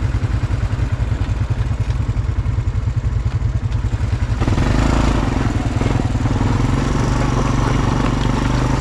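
ATV engine idling with a lumpy, pulsing beat; about four and a half seconds in, it gets louder and steadier as the throttle opens.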